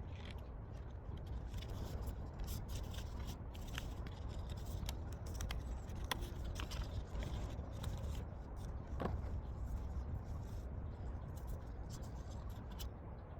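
Hands handling album packaging: irregular scraping, crinkling and small clicks of paper, card and plastic, over a steady low background rumble.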